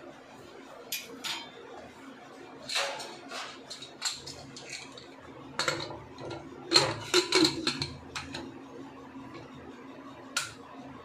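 Aluminium pressure cooker lid being put on and closed: a series of metal clanks and scrapes, busiest around the middle, with one last click near the end.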